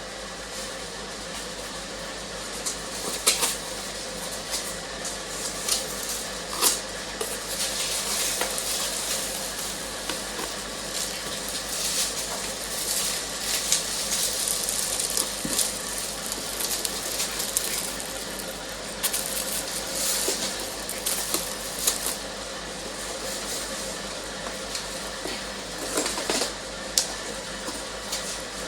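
Unboxing sounds: a loudspeaker and its packaging being handled, with scattered clicks and knocks and stretches of rustling, over a steady mechanical hum.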